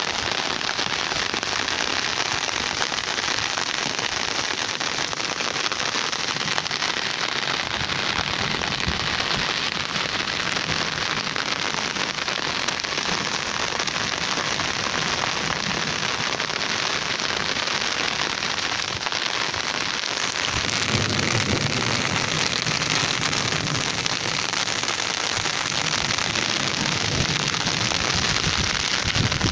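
Rain falling steadily: a dense hiss of countless drops with fine patter, growing a little fuller and louder about two-thirds of the way through.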